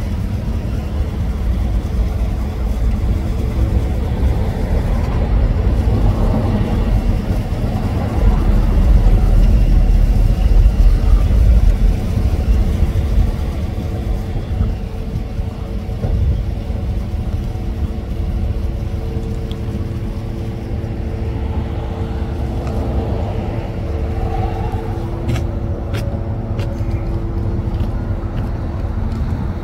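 Car engine and road noise: a low rumble, loudest from about eight to twelve seconds in, settling into a steadier hum, with a few light clicks near the end.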